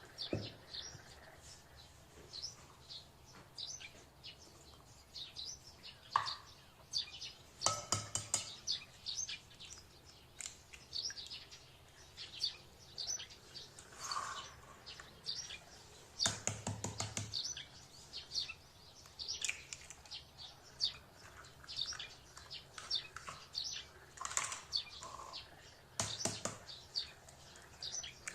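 Small birds chirping and tweeting continuously in quick, short, high notes. A few louder rattling bursts come about a third of the way in, near the middle and near the end.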